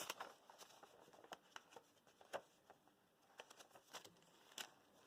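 Faint, scattered ticks and rustles of paper being handled as the pages of a handmade paper journal are turned and its tucked-in pieces touched.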